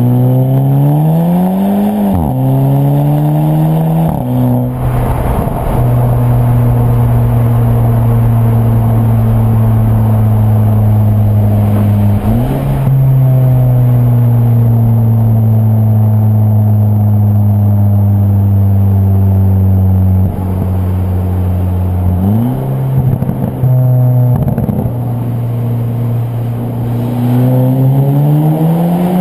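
Volkswagen/Audi car with a DSG dual-clutch gearbox accelerating hard, its engine pitch climbing then dropping abruptly at quick gear changes, each upshift marked by a short exhaust 'fart'. Between the shifts the engine runs on for several seconds with a slowly falling tone.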